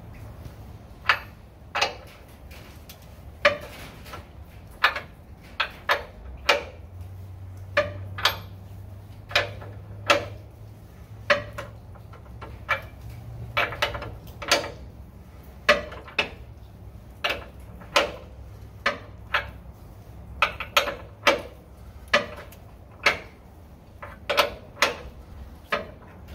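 Hand ratchet clicking in short, separate strokes, about one to two a second with some quick pairs, as it backs off a lower control arm cam bolt nut that has just been broken loose. A low steady hum runs underneath.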